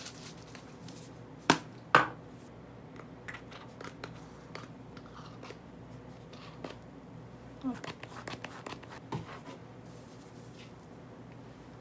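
Handling sounds of a can of hair mousse: two sharp clicks about a second and a half and two seconds in, then scattered lighter clicks and rustles, over a steady low hum.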